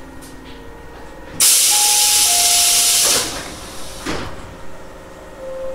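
Tobu 850-series electric train at a station stop just before departure: a loud burst of compressed-air hissing for about two seconds, then a thud about a second later, typical of the air-operated doors closing.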